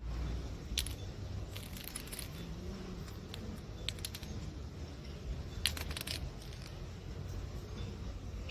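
A small thread spool on a string tapping and clicking against stone paving, in a few scattered clusters of light clicks, over a steady low background rumble.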